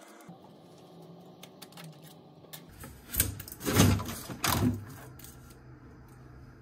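A large packing insert is dragged up and out of a 3D printer's enclosure, scraping and rustling against the frame in three loud bursts about halfway through, after lighter handling clicks.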